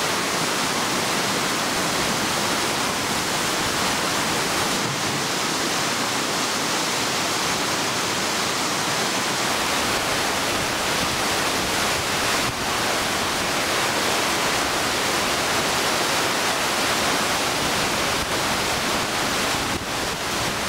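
Steady rushing of whitewater breaking and churning through a concrete artificial whitewater channel.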